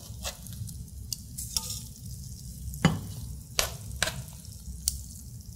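Chicken pieces in a cream sauce simmering in a skillet, with several sharp clicks of a utensil against the pan as the pieces are turned over.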